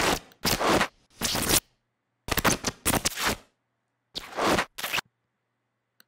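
Scissor arc zaps from a sound-effects library: crackling electrical sizzles and buzzing sparks in about six short, separate bursts with brief silences between them.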